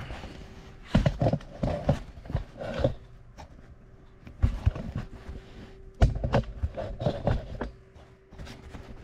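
Irregular clusters of knocks, thuds and scuffs from handling and footsteps on a concrete shop floor, with a faint steady hum underneath.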